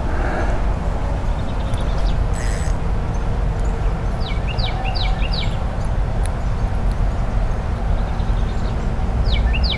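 Steady low outdoor rumble, with a songbird whistling two phrases of four quick down-slurred notes, one about four seconds in and one near the end.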